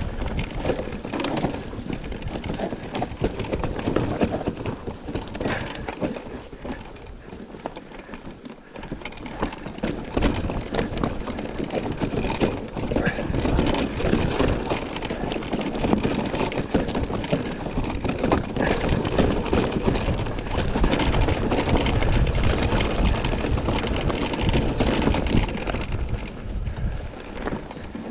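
Electric mountain bike rattling down a rough trail: a continuous clatter of tyres over stones and roots, with chain and frame knocking. It eases off briefly about seven to nine seconds in.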